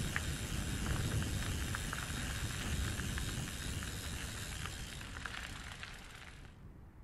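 Outdoor movement noise: a steady low rumble like wind on the microphone, with scattered small ticks. It fades away near the end.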